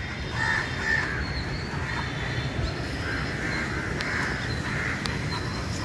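Crows cawing again and again in the surrounding trees, over a steady low background rumble.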